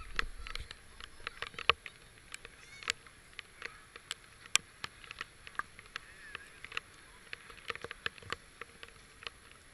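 Rain dripping onto the camera and the surrounding leaves: sharp single ticks at irregular intervals, a few a second, over a faint steady hiss.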